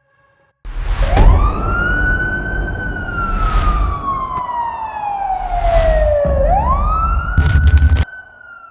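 A siren wailing. Its pitch climbs quickly, falls slowly over about five seconds, then climbs again and starts another slow fall. Under it runs a heavy low rumble with a few sharp loud bursts, and the rumble cuts off suddenly near the end, leaving the siren fainter.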